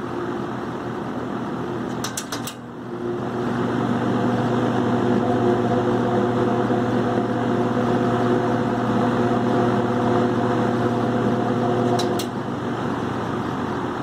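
Vintage McGraw Edison New Home 20-inch box fan running with its blades on: a steady motor hum with the rumble of bearing run-out, which is less at medium or low speed. Clicks of the speed switch come a little over two seconds in, after which the fan runs louder. More clicks about twelve seconds in, and it drops back quieter.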